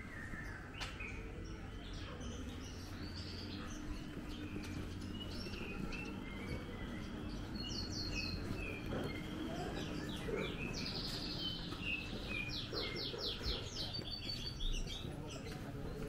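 Small birds chirping and twittering, with quick trills in the second half, over a steady low hum.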